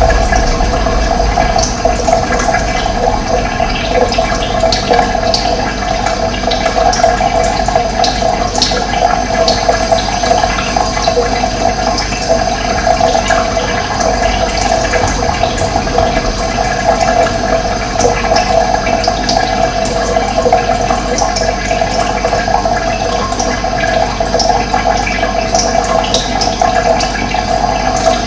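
Steady running water rushing without a break, with scattered short bird chirps over it.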